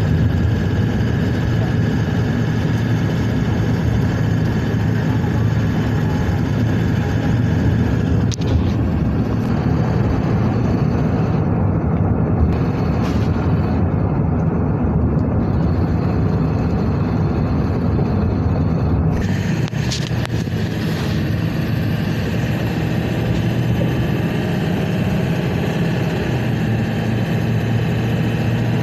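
Ford 7.3 Powerstroke turbodiesel V8 running, with the turbo whistling from a boost leak, air escaping from the turbo. The sound changes abruptly about eight seconds in and again about nineteen seconds in.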